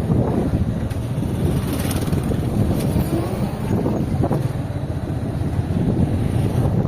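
Riding on a motorbike: steady wind rushing over the microphone with the bike's engine running underneath.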